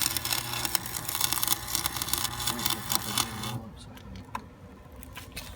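Arc welding on a car differential: the arc's steady crackling sizzle, which cuts off suddenly about three and a half seconds in as the weld bead is stopped.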